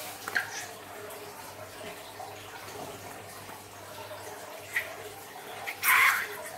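Scissors snip the neck of a slime-filled rubber balloon, then thick slime oozes and splashes out into a glass bowl of liquid slime, with a louder wet squelch near the end as the balloon is squeezed.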